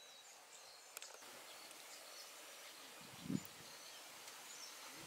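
Faint open-air ambience with distant birds chirping now and then. A brief low thump about three seconds in.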